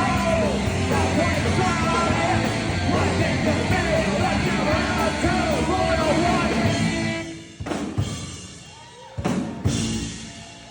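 Live rock band playing, with drums, guitars and singing; the song ends about seven seconds in, followed by a couple of last loud hits.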